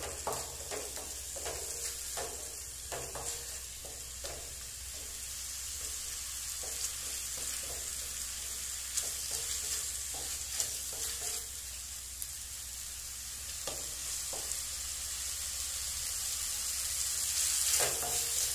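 Grated coconut masala sizzling as it fries in a stainless steel kadai, with a spatula scraping and stirring it against the pan in irregular strokes. The coconut is being sautéed to bring out its flavour before the spice powder goes in. The strokes come thickest in the first few seconds and are loudest near the end.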